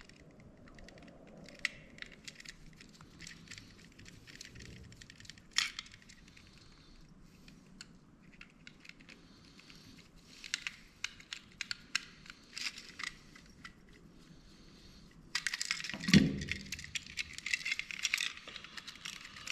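Small screwdriver clicking and scraping against the tiny screws of a dome security camera's housing as they are worked loose, in scattered light ticks. About four seconds from the end, a louder rasping scrape with a dull knock.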